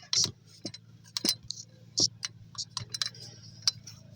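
Hand tools clicking and clinking against metal while alternator bolts are worked on, about ten sharp clicks at uneven intervals over a faint low hum.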